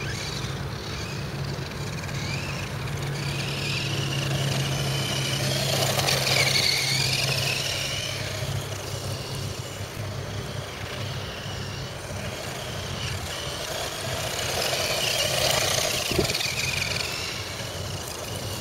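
Thunder Tiger Jackal 1/10-scale electric 4WD RC desert buggy driving on dirt: the whine of its electric motor and gears rises and falls with the throttle, loudest about six seconds in and again near the end, with a single short knock about sixteen seconds in.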